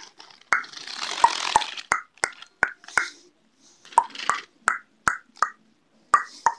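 Sharp plastic clicks and taps, a dozen or so at uneven intervals, with short bursts of rustling, as hands handle model train cars on plastic track.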